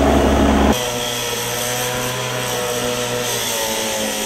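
Firefighting helicopter's rotor and engine overhead, cut off abruptly under a second in by a small engine running steadily, its pitch wavering slightly.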